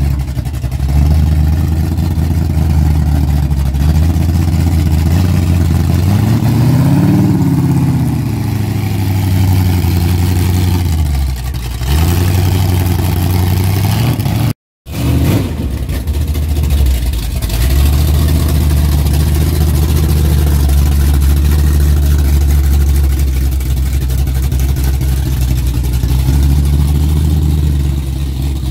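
1989 Dodge D150's 440 big-block V8 running at low revs as the truck rolls slowly, with one brief rise and fall in revs about a quarter of the way in. The sound drops out for an instant about halfway through, then runs steady again.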